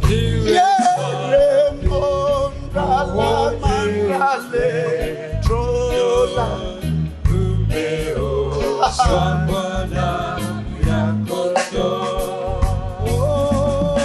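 Gospel worship song sung in Swahili, voices carrying the melody over instrumental backing with a bass line.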